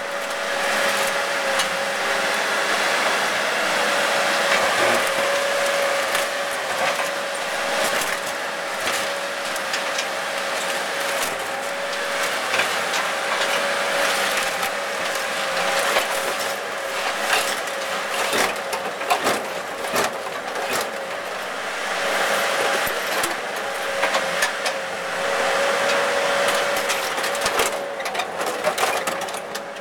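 Excavator running steadily with a constant whine, while scattered cracks and knocks come from the Mercedes 300D's body being crushed and torn apart.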